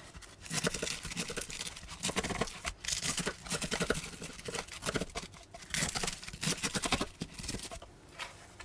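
Knife cutting through crisp baked filo pastry rolls: a dense run of crackling, crunching clicks as the brittle layers shatter, which dies away shortly before the end.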